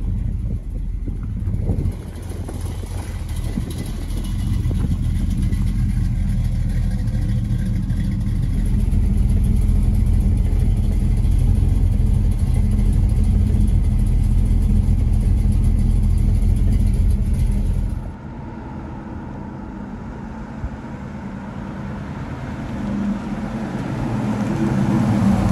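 1969 Ford Mustang Mach 1's V8 idling steadily with a low, even rumble. About two-thirds of the way through it drops to a quieter engine and road sound, which swells again near the end as the car drives up and passes.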